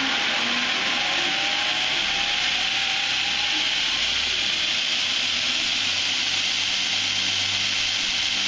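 Belt grinder running with no work on it while a water-cooling jet wets the moving belt: a steady rushing hiss, with a faint rising whine in the first few seconds.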